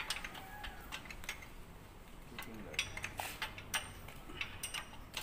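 Irregular metallic clicks and clinks of a combination wrench working a bolt on a HOWO truck transmission housing and steel transmission parts being handled, with the sharpest clinks a few seconds in.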